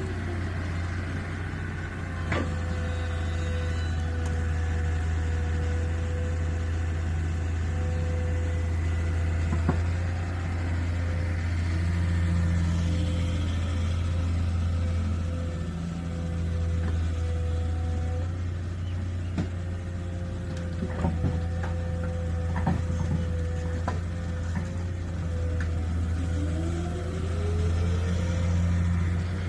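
Diesel engines running steadily: a Swaraj tractor idling close by and an L&T-Komatsu excavator working as it loads soil into the tractor's trailer. A few sharp knocks come through, and a rising whine near the end.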